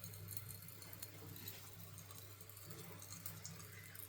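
Faint scattered ticks and light rustles of small items being handled, over a steady low hum.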